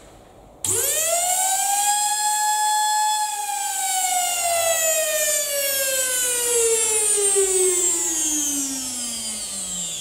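Vacuum cleaner motor switched on about half a second in, spinning up fast to a high whine, holding briefly, then running down with steadily falling pitch from about three seconds in. A test run after swapping the motor's leads: it still spins the same way, so the swap has not reversed it.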